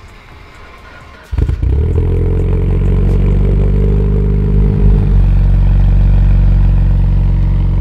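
Mitsubishi Lancer Evolution VIII's turbocharged 2.0-litre inline-four (4G63) comes in suddenly about a second in and idles steadily, just started on a jump from another car's battery.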